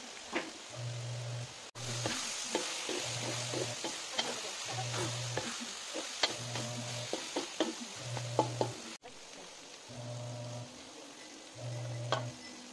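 Ground meat and sliced hotdogs sizzling in a metal wok while a spatula stirs them, scraping and clicking against the pan, with diced carrots tipped in near the end. A low beat of background music pulses about once a second underneath.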